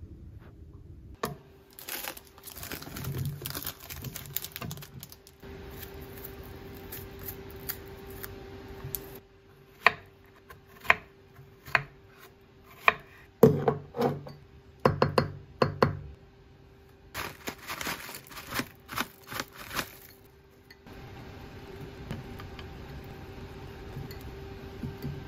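Food preparation at a kitchen counter: plastic packaging crinkling, then a kitchen knife knocking on a wooden cutting board as strawberries are cut, a series of sharp knocks about halfway through, followed by more crinkling. A steady faint hum runs underneath.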